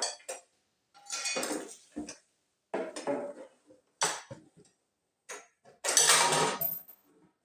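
Hand tools and metal parts clinking and clattering in several separate bursts, the longest about six seconds in.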